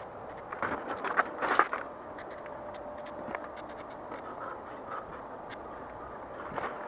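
Short scrapes and clicks from hands and a small oil can working at a road bike's front brake and fork, in a cluster about a second in and again near the end.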